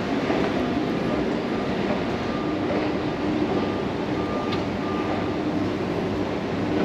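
Steady mechanical rumble of a metro station heard from a running escalator, with faint on-and-off hums over it.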